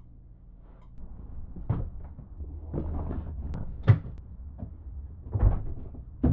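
A run of knocks and bumps of household things and luggage being handled and set down, over a dull low rumble. The sharpest knock comes about four seconds in, with others a little before two seconds, at about five and a half seconds and at the very end.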